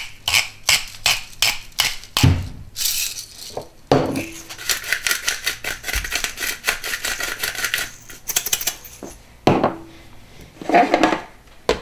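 Hand-held salt and pepper grinders being twisted over a blender jar: quick runs of ratcheting clicks, with a steadier gritty grinding in the middle.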